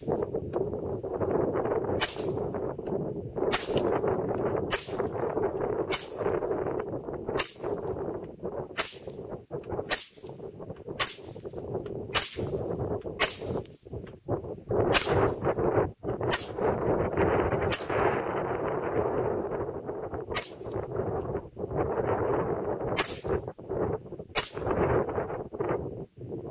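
M4 carbine firing 5.56mm XM193 rounds in a long string of single shots, one every second or two, over gusty wind buffeting the microphone.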